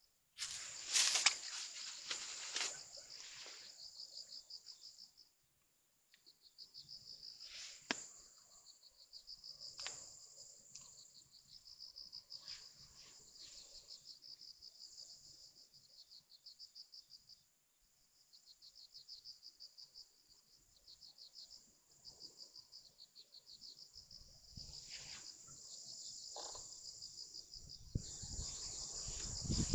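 Insects chirping in rapid, high-pitched pulsed trills that break off briefly a couple of times. A few sharp clicks fall in the first ten seconds, and a low rumbling noise builds near the end.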